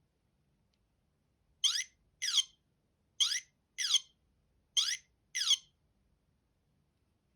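Sony Ericsson T68i mobile phone playing one of its built-in ringtones: three pairs of short electronic chirps, each falling quickly in pitch, with about a second and a half between pairs.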